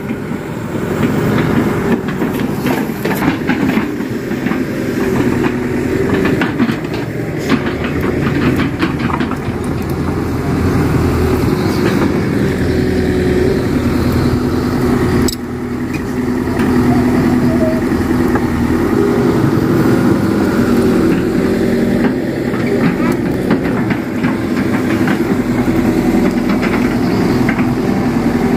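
Diesel engines of heavy earthmoving machinery running steadily under load, with scattered knocks and clanks.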